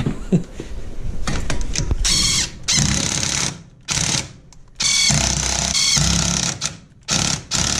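Cordless impact wrench hammering lug nuts tight on a wheel, in several bursts of half a second to nearly two seconds with short pauses between.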